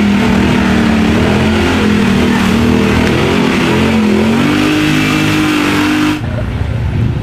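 Lifted off-road Jeep's engine revving hard as it plows through a deep mud hole. The revs waver and climb, then fall away about six seconds in.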